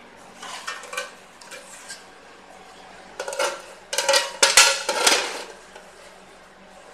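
Metal top cover being slid and set onto a sheet-metal control box enclosure: metal scraping and clattering against metal, with the loudest rattling and knocks about three to five seconds in.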